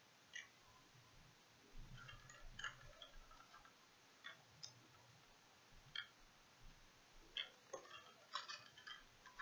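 Faint, scattered clicks and crinkles of a clear plastic fishing-lure package being handled and turned over, a few in quick succession near the end.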